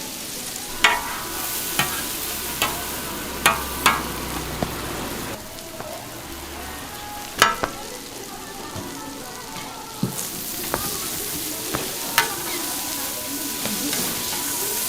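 Toast fillings frying on a flat street-stall griddle, with a steady sizzle. Now and then a metal spatula taps or scrapes against the griddle with a sharp, briefly ringing click.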